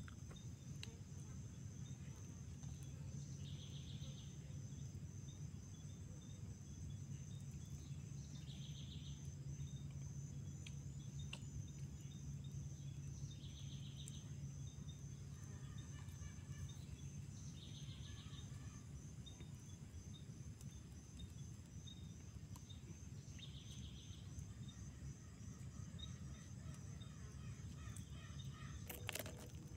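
Outdoor ambience of insects trilling steadily, with a bird giving a short call about every four to five seconds over a faint steady low hum.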